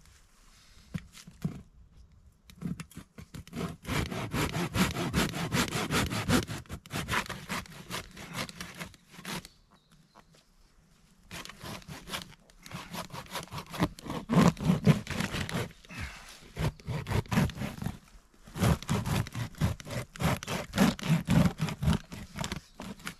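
Wood being worked by hand with rapid back-and-forth strokes, like sawing or scraping, in several bouts with short pauses between them.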